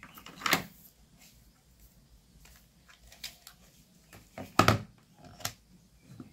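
A few light, separate clicks and knocks of small objects handled on a tabletop, the loudest about four and a half seconds in, with quiet between them.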